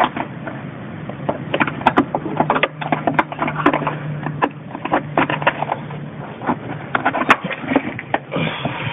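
A screwdriver prying and scraping at a plastic wheel-arch liner clip, with irregular clicks and scrapes as the clip is worked loose. A steady low hum runs under it for a few seconds midway.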